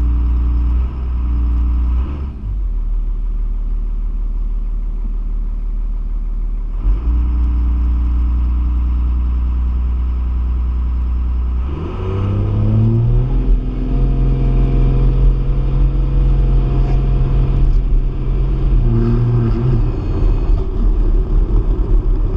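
Car engine held at a steady note, then about twelve seconds in it revs up sharply as the car launches and accelerates, settling into a higher steady pitch with a brief dip near the end.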